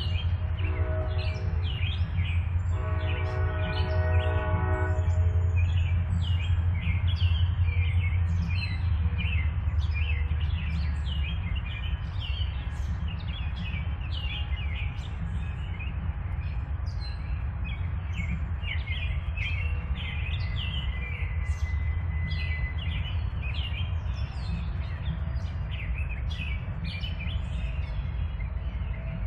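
Freight train's diesel locomotives giving a steady low rumble, with two sounds of a multi-chime air horn in the first five seconds. Birds chirp throughout.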